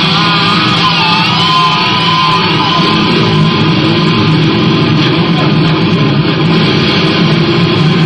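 Loud punk rock music with electric guitar, dense and unbroken.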